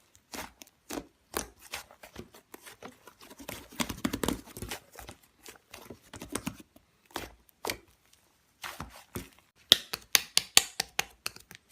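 White clay slime being squished and poked by hand, making irregular sharp clicks and crackles that come thicker and louder near the end.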